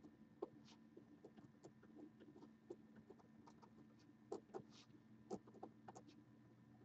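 Near silence: faint steady room hum with scattered soft clicks and ticks, a few a little louder about four and a half and five and a half seconds in.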